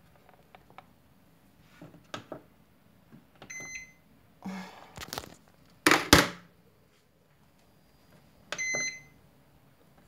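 Microwave oven control-panel beeps: two short electronic beeps, one about three and a half seconds in and one near the end, with a sharp double knock about six seconds in and light handling noise.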